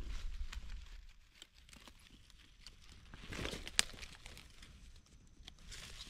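Dry leaf litter on a forest floor rustling and crackling as it is handled and stepped on, with scattered small snaps and one sharp snap about four seconds in.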